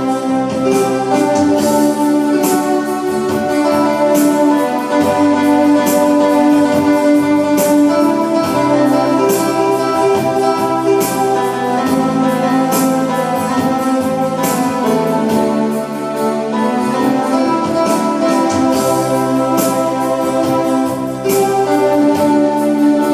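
Yamaha electronic keyboard playing an instrumental song: held chords changing every few seconds over a steady beat.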